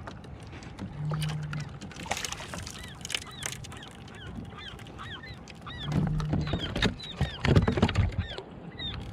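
A bird calling over and over in short squawks that rise and fall, several a second, with a few knocks and bumps about two-thirds of the way in.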